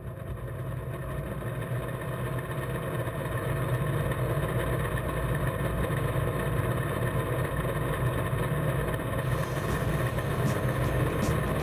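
A heavy engine of harvest machinery running steadily at a constant speed, fading up over the first few seconds.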